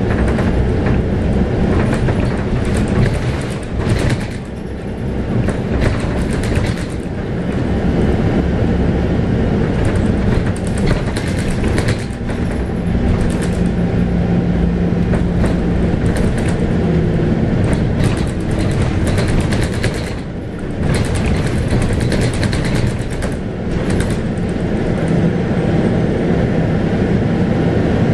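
Scania K280UB bus under way, heard from inside the cabin: its 9.3-litre five-cylinder Scania DC9 diesel running, its note rising and falling as the bus speeds up and slows, with body panels and fittings rattling throughout.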